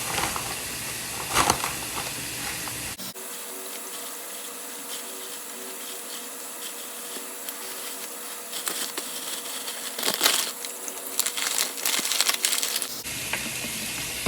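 Kitchen tap running steadily, with plastic bags crinkling in bursts.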